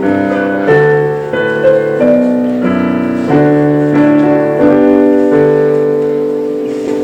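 Piano playing slow chords, the last one held and slowly fading near the end.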